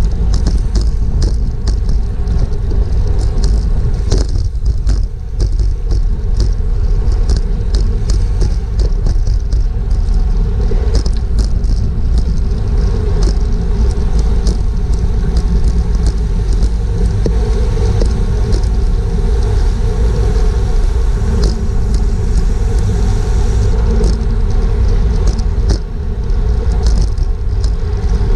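Racing bicycle ridden at speed, heard through a GoPro on the bike: wind buffeting the microphone with a heavy low rumble, a steady hum, and frequent ticks and rattles from the bike and road.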